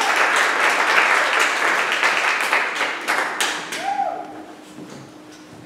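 Congregation applauding, the clapping thinning out about three seconds in and dying away by about four seconds.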